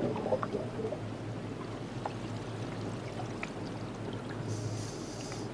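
Underwater ambience: a steady watery wash with a few faint clicks, and a brief rise in hiss near the end.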